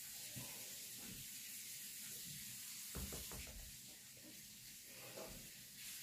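Faint scratching of a graphite pencil on plain drawing paper, with a few soft strokes around the middle, over a steady background hiss.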